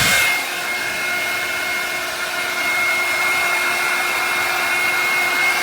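ANNE BETTY 1800W ionic hair dryer running on its top speed setting: a steady rush of air with a constant high motor whine.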